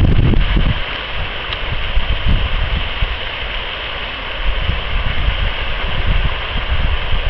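Wind buffeting the microphone in uneven low gusts, loudest near the start, over a steady rushing hiss.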